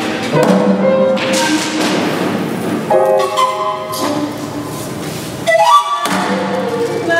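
Live avant-garde music: held pitched notes that change every second or so, with a sharp upward slide about five and a half seconds in, over scattered thumps.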